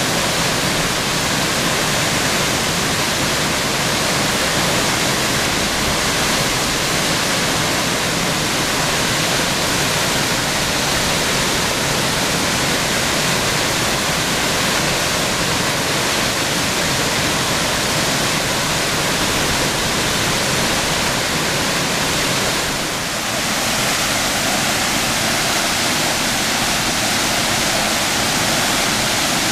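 Waterfall of several strands dropping onto rocks, a steady, even rush of falling water. About three quarters of the way through it dips briefly and then carries on with a slightly different tone.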